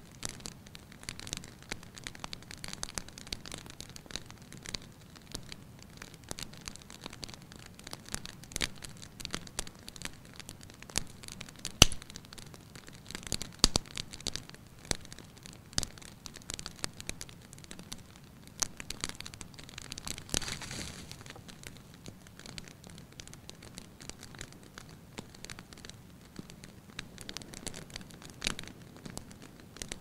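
Wood fire crackling, with frequent small snaps and pops over a low hiss. One loud pop comes about twelve seconds in, and a dense flurry of crackles about twenty seconds in.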